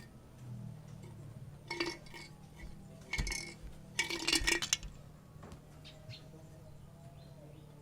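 Hard objects clinking and rattling against each other in three short bursts, the last one the longest, over a faint steady low hum.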